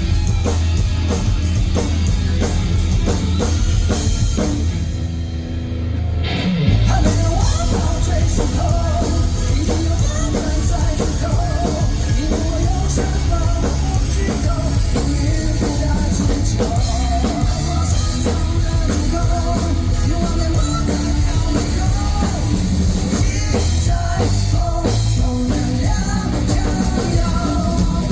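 Live rock band playing loudly with drum kit and electric guitar. About five seconds in the music briefly thins out and dips, then the full band comes back in with a hit.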